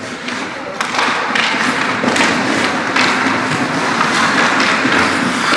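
Ice hockey play on the rink: a steady scraping hiss of skates on ice, with repeated sharp clacks and thuds of sticks and puck.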